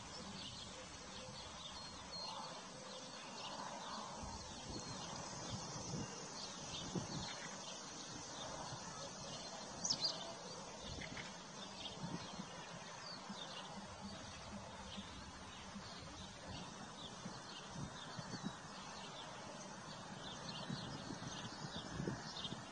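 Horses grazing, with irregular short tearing crunches as they crop grass, over steady background birdsong of many short high chirps.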